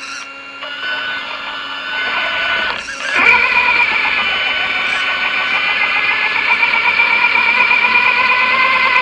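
Whine of an ARRMA Big Rock 3S RC truck's sensored brushless motor and geared drivetrain, several steady high tones that rise in pitch and get louder about three seconds in as the truck throttles up through shallow water.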